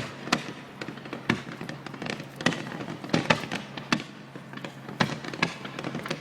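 Fireworks display going off: an irregular run of sharp bangs and crackles, with several louder reports among them.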